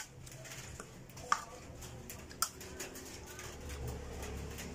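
Close-up eating sounds: chewing and lip smacks, with many small clicks and two sharper ones, about a second in and two and a half seconds in.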